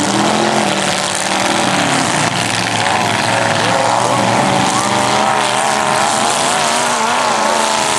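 Several demolition derby cars' engines running and revving at once, loud and continuous, their pitches wavering up and down over a broad noisy rumble.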